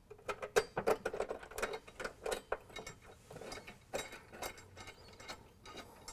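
Irregular light metallic clicks and taps of a bolt and washers being handled and fitted against a steel mounting bracket, quick at first, then sparser.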